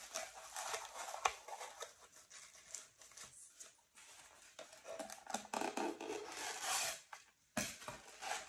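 Bubble wrap and plastic wrapping rustling and crinkling as it is pulled open and off, with scattered clicks; the crinkling is densest a little past the middle.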